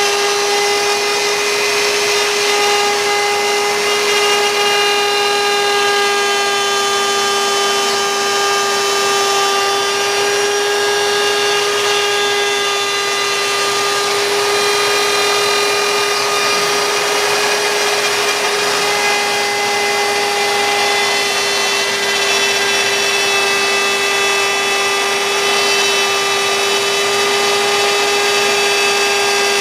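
CNC router spindle running at a steady speed while it cuts wood, a constant high whine over a hiss of cutting.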